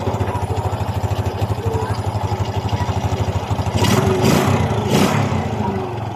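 Honda XRM 125's single-cylinder four-stroke engine running at idle with a rapid, even knocking pulse, revved up a few times about four seconds in; the knock is piston slap.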